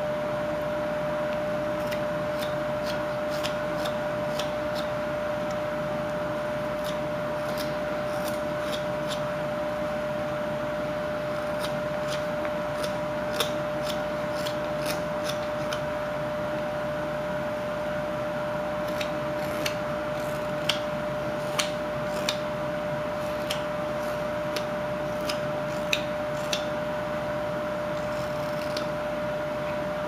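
Carving knife slicing chips off a wooden block: scattered short, sharp cuts, coming more often in the second half, over a steady hum.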